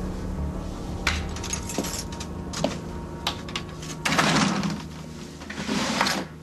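Keys jingling and a door latch clicking as someone lets herself into a house, then two louder bursts of rustling and knocking as things on a desk are handled, over a low steady hum.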